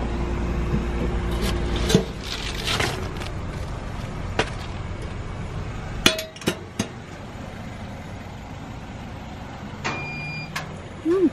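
A steady low hum that stops about two seconds in, then scattered sharp clicks and knocks, and a short electronic beep about ten seconds in.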